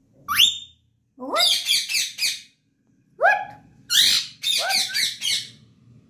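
Indian ringneck parakeet calling: a sharp rising call about a quarter second in, then two runs of quick, rapidly repeated chattering calls, the loudest around four seconds in. Its owner takes the calling for fright.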